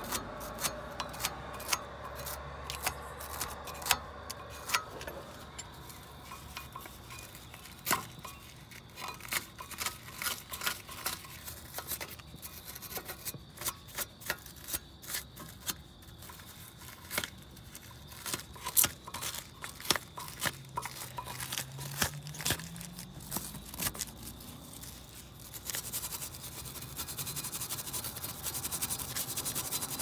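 Small wire brush scrubbing rust and dirt off a front brake caliper bracket where the pad clips seat, heard as irregular scratchy strokes with scattered clicks and taps of metal on metal.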